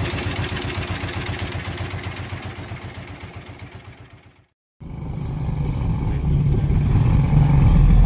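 Small boat engine chugging with a rapid, even beat, fading away over about four seconds and then cutting off; after a brief silence a steady low rumble rises.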